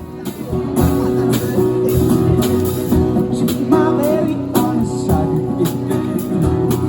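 Music with a steady beat and guitar, coming in loudly at the start.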